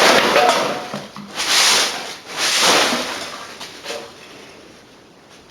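Three swishing strokes of a large brush sweeping a garage floor, about a second apart, then quieter.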